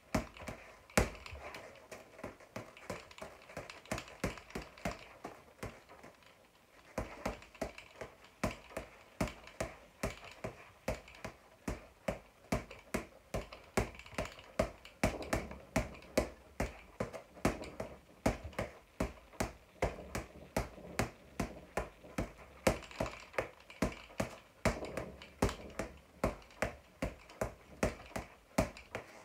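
Boxing gloves striking a floor-to-ceiling double-end ball in a rapid run of sharp slaps, about three a second, as the ball rebounds on its elastic cords. The punching pauses briefly about six seconds in, then carries on.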